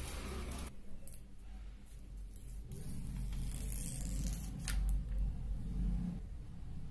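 Plastic protective film being peeled off a new smartphone's screen by hand, rustling and crinkling, with a few brief crackles.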